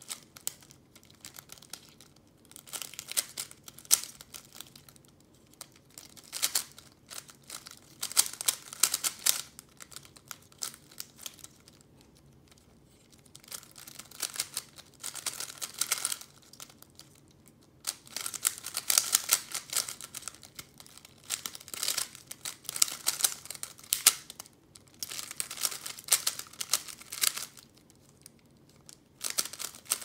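Plastic 3x3 speed cube being turned fast by hand: rapid clicking and clacking of the layers in bursts of a few seconds, with short pauses between them.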